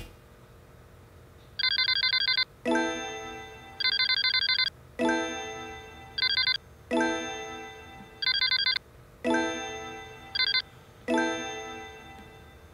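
Edited-in sound effects, five times over: a short, rapidly trilling ring like a phone bell, each followed by a struck, chime-like tone that fades over about a second.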